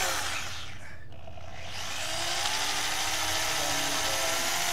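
Electric drill running with a small bit, drilling out a broken bolt in the engine block: a steady whine that starts about two seconds in and rises slightly in pitch, after a short scratchy burst at the start.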